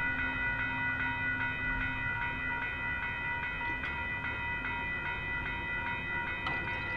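Railroad crossing warning bell ringing steadily with rapid, regular strikes while the crossing lights flash. The gate arms begin to rise, with a sharp click about four seconds in and another near the end.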